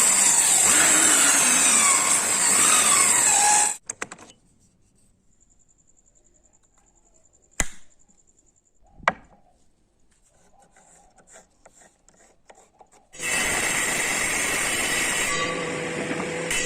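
A power tool cutting or carving wood, its motor pitch wavering up and down under load, stops about four seconds in. Then comes near quiet broken by two sharp knocks, and music starts near the end.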